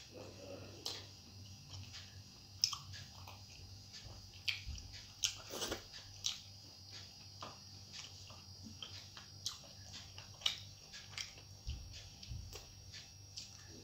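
Close-miked chewing and wet mouth sounds of a person eating rice and fish curry by hand, with irregular sharp smacks and clicks.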